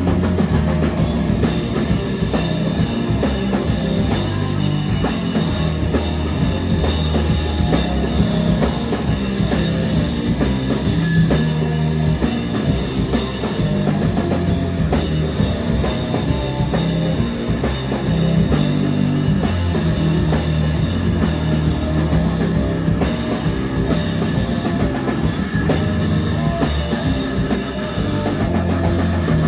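A live rock band playing loud and without a break, with the drum kit and bass prominent under the guitars. It is heard from within the audience in a small club.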